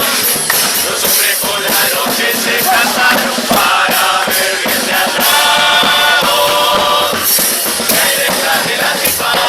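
Murga chorus singing together in unison over a carnival drum battery of bass drum, snare and cymbals keeping a steady beat.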